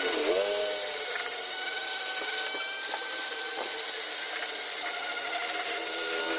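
Handheld pen-style rotary grinder running at high speed, its bit grinding the inside of an aluminium port on a Yamaha NMAX cylinder head to enlarge it for a 63 mm bore. A steady whine mixes with a rasping grind, and the pitch sags briefly just after the start as the bit bites.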